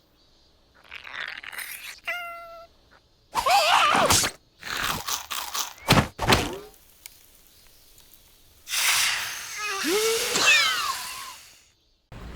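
Wordless cartoon larva characters squeaking and squealing in gibberish with gliding pitches, mixed with slapstick sound effects: thuds and crunches and a short steady beep-like tone.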